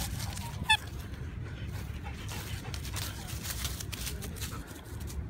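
German Shepherd at play with one short high squeak a little under a second in, over a steady low rumble on the microphone and faint rustling.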